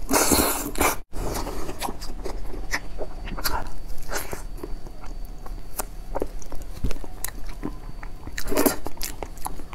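Close-miked wet mouth sounds of eating soft, creamy durian flesh: smacking, sucking and chewing with scattered small clicks. The sound cuts out for an instant about a second in.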